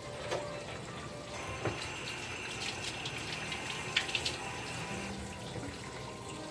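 Kitchen tap running for about four seconds, starting a little over a second in, over the steady sizzle of fish frying in a pot of hot oil, with a few light knocks.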